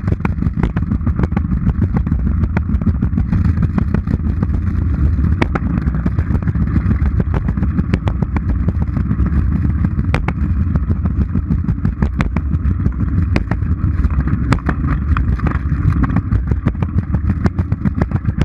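A Razor scooter's small hard wheels rolling fast over a concrete sidewalk at about 10 mph: a steady loud rumble with frequent sharp clicks and knocks.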